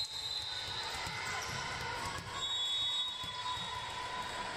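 Dull thuds of a ball or feet on a gymnasium floor during a volleyball match, with a steady high-pitched tone starting about halfway through.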